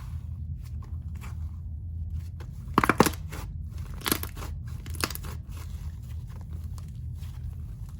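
Slime being squished and stretched by hand, with many small sticky crackles and clicks and a few louder pops about three, four and five seconds in.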